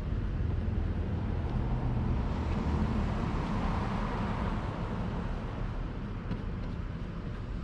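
A passing vehicle: a steady rumble with a swell of road noise that rises and fades about halfway through.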